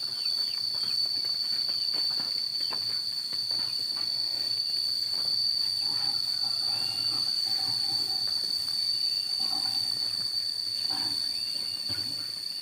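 A steady, high-pitched chorus of insects, with a few short, faint chirps scattered through it.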